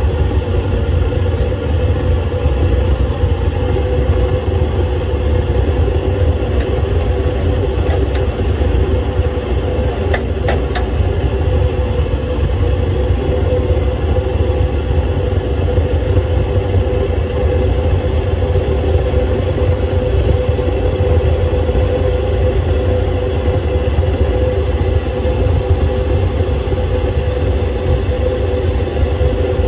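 Steady rumble and hiss in the cab of a 1975 Crown Metal Products propane-fired 24-inch gauge steam locomotive with its fire lit, with no exhaust beats. A couple of faint clicks come about ten seconds in.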